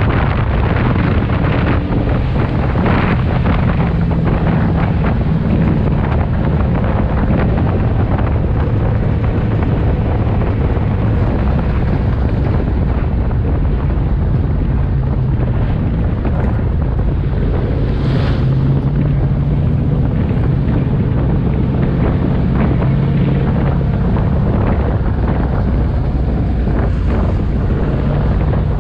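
Ford Outlaw figure-8 race car heard from inside the cockpit: the engine runs loud and without a break, its pitch rising and falling with throttle, under heavy wind and road noise on the onboard microphone.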